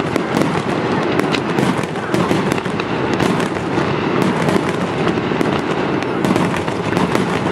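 Fireworks display: aerial shells bursting one after another in a continuous barrage, with many sharp cracks and crackling throughout.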